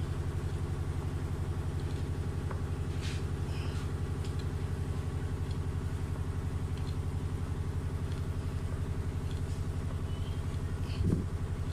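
A steady low engine-like drone with a fast, even pulse. Over it are a few faint clicks from the Staresso SP200's hand pump being worked, and near the end a short rising squeak.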